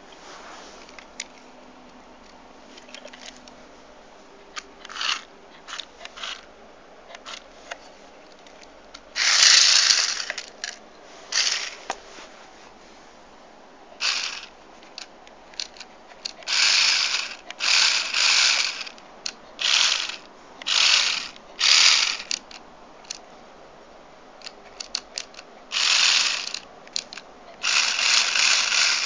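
Mini RC 4x4's small electric drive motor and gearbox running in short bursts of about a second, about a dozen times, as the truck is driven in spurts.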